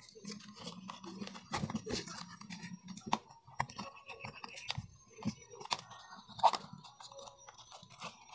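A cut plastic oil container being handled and bent by hand, its stiff plastic giving irregular crackles, clicks and taps, the loudest about six and a half seconds in.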